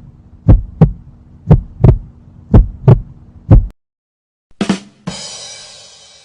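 Heartbeat sound effect: loud double thumps (lub-dub) about once a second over a faint low hum, stopping after about three and a half seconds. About a second later comes a short hit, then a bright, hissing crash that fades away over about a second.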